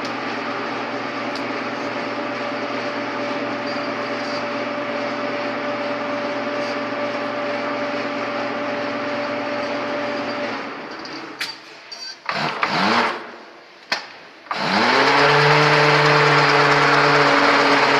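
Electric motor coil taping machine running with a steady hum and hiss, winding down about ten seconds in. A few clicks and short whirs follow, then the taping head starts up again, its pitch rising and settling into a louder steady run.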